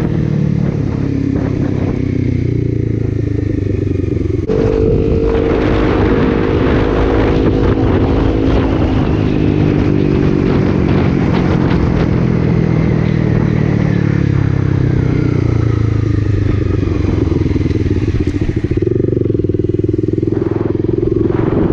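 Honda CBR300R single-cylinder engine running under way, with wind rushing over the action camera's microphone. The engine note jumps up about four seconds in, falls slowly over the next ten seconds or so, and changes again near the end.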